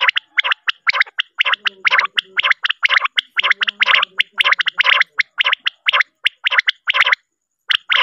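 Male common quail calling: a fast run of short, sharp, clipped notes repeated several times a second, with a brief pause near the end. A recorded call of the kind played as a lure for quail hunting.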